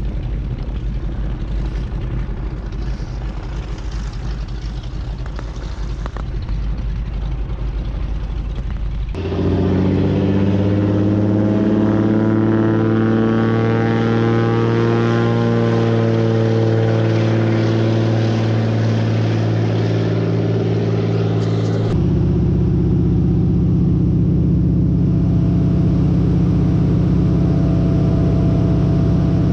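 Single-engine floatplane's propeller engine. It starts as a rough, distant hum while the plane taxis on the water. About nine seconds in the sound jumps to the engine at full power for the takeoff, its pitch rising and then falling. About 22 seconds in it becomes the steady drone of the engine in cruise, heard from inside the cockpit.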